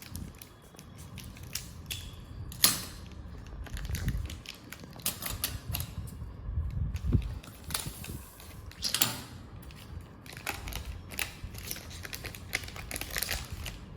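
Chocolate bar wrapper being handled and cut open: a string of small clicks and rustles, with one sharp click about three seconds in.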